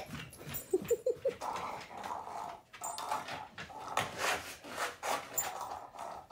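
A dog whimpering: a few short, high whines about a second in, then softer, restless noises.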